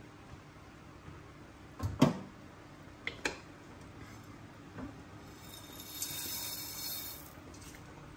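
Kitchen handling noises: a few sharp knocks and clacks of cookware or utensils, the loudest about two seconds in and two quick ones about a second later, then a soft hiss lasting about two seconds near the end.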